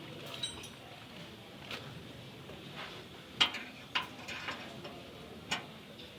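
A few sharp clicks and knocks at irregular spacing, the loudest a little past halfway, typical of hand tools being handled against metal during car repair work.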